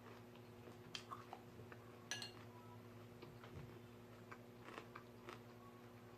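Faint eating sounds: chewing of a crunchy kale salad and a few light clicks of a fork against the dish, the sharpest about one and two seconds in, over a low steady hum.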